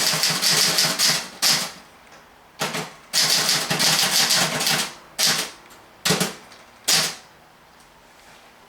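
1958 Olympia SG1 desktop typewriter being typed on: quick runs of keystrokes with short pauses, then a few single strokes, stopping about seven seconds in. Its internal sound-deadening foam has been removed, so it types a bit louder.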